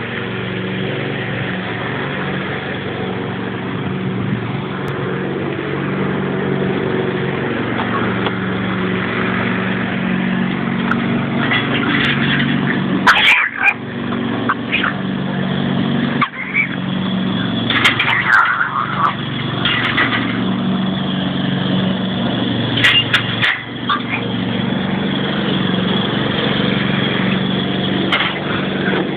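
Boston terrier growling in a long, continuous rumble that swells and eases, broken by a few short barks in the second half.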